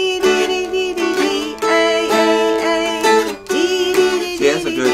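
Two mountain dulcimers strummed together, chord after chord, the strings ringing on between strums.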